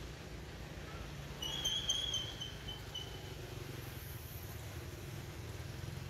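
A high-pitched animal call lasting about a second, beginning about one and a half seconds in, followed by a short second note, over a steady low rumble.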